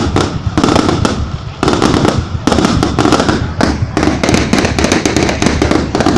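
Fireworks display going off without a break: a dense run of sharp cracks and bangs, many overlapping, over a steady low rumble.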